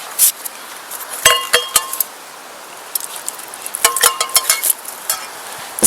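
Wet sharpening stone stroked quickly along an axe's cutting edge, the steel clinking and ringing with each stroke. The strokes come in two quick runs, about a second in and again near four seconds in.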